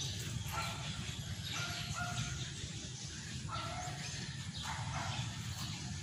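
A dog barking repeatedly, short barks about once a second, over a low steady rumble.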